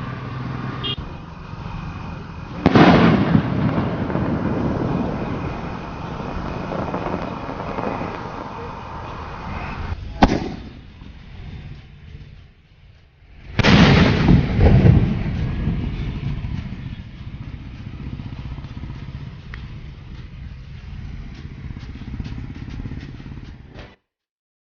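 Niagara-type skyshot aerial firework shells: a loud burst about three seconds in, followed by a long fading hiss and crackle, and a single sharp pop near ten seconds. A second loud burst comes at about fourteen seconds, with another long crackling trail that cuts off abruptly near the end.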